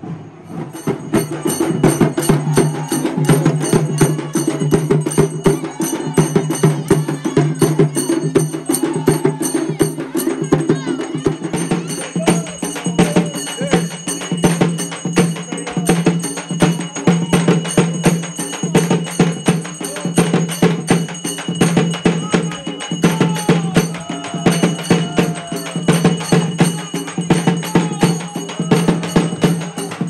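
Tamil temple procession music: fast, dense hand drumming with ringing small cymbals or bells. It starts abruptly about half a second in and keeps a driving beat.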